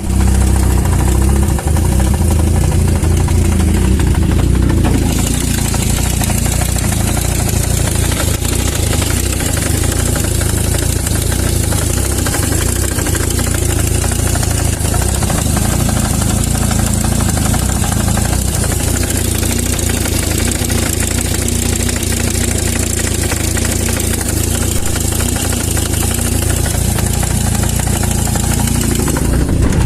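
Vehicle engine running steadily at idle with a knock, whose cause the owner does not know.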